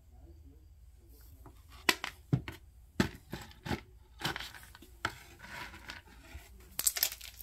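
A plastic feed scoop knocking and scraping in a plastic bucket, with horse grain pellets rattling, as a small child scoops grain. The sharp knocks and scrapes come irregularly, starting about two seconds in.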